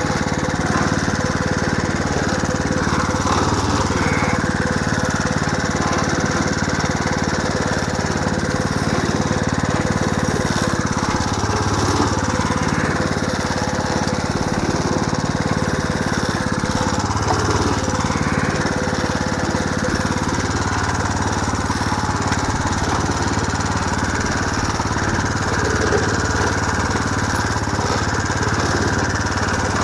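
A 3.5-horsepower small engine running steadily under load, driving the plunger of a miniature hay baler as it presses hay.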